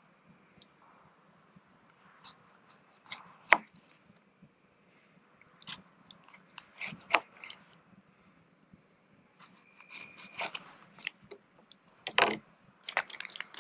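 Knife slicing a tomato on a plastic cutting board: scattered soft cuts and sharp knocks of the blade on the board, the loudest about three and a half seconds in, others near seven and twelve seconds. Under it, a steady high-pitched insect drone.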